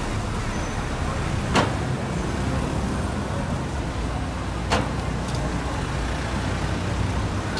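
Steady rumble of street traffic, with two sharp clicks, about a second and a half in and again just before five seconds in.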